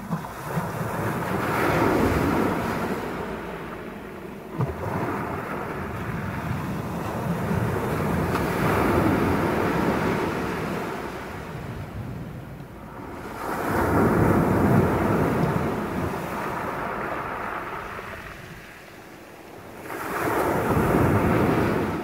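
Sea waves breaking and washing up a pebble beach, the surf swelling and fading about four times, a few seconds each. A single short tick about four and a half seconds in.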